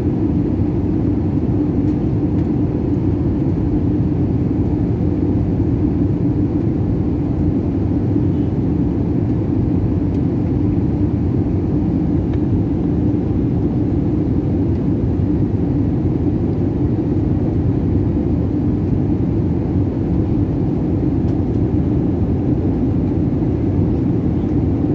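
Steady cabin noise of a jet airliner in flight, heard from a window seat beside the wing engine: the jet engines and rushing airflow make a low, even rumble with a hum running through it.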